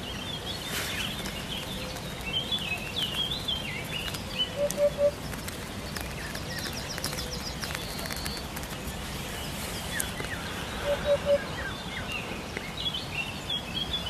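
Eurasian hoopoe calling its soft, low three-note 'oop-oop-oop' twice, about six seconds apart, with small birds chirping higher up in the background.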